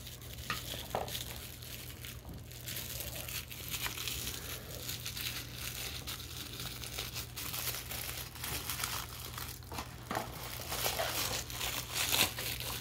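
Plastic toy packaging crinkling and rustling as a small wrapped package is opened by hand, with bits of tearing.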